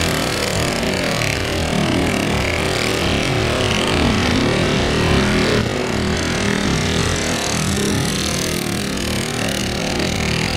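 Several racing go-kart engines running together through a chicane, their engine notes rising and falling as they brake and accelerate.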